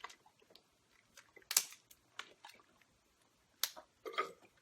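Someone drinking from a water bottle: scattered small swallowing and bottle-handling noises, with two sharper clicks, about a second and a half in and near the end.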